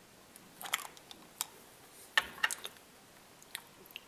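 Light, irregular clicks and taps of small plastic rods being handled and stacked on a hard, glossy work surface between metal pliers, some of them coming in small clusters.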